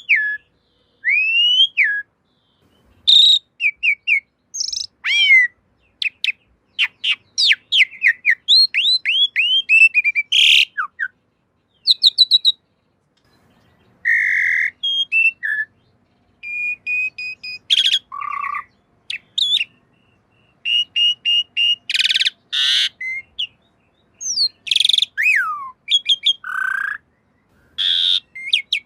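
Asian pied starling (jalak suren) singing a varied song: rising and falling whistles, quick runs of short notes and harsh rasping calls, in phrases broken by short pauses.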